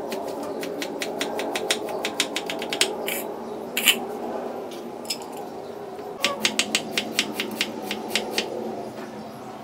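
Chef's knife slicing an onion on a wooden cutting board: quick runs of blade taps on the board, about four a second, with a pause in the middle, over a steady background hum.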